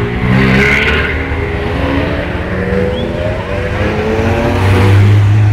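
Ferrari engines as the cars drive slowly past one after another. The engine note rises gently and is loudest near the end.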